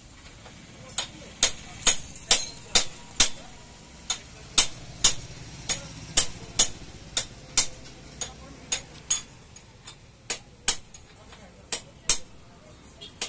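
Sharp metallic clicks from a mechanic's hand tool working on a stripped-down motorcycle, uneven and about two a second, starting about a second in.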